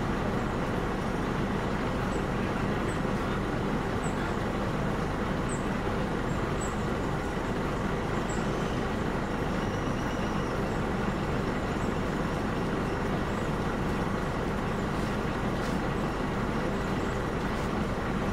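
A heavy vehicle's engine running steadily, with a constant low drone and no change in pace. Faint high chirps come now and then in the first half.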